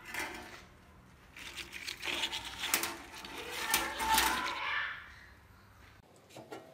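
Hands handling an orchid's root ball, bound with wire, and its leaves: a rustling, crackling stretch of dense little clicks that dies down, with a few light clicks near the end.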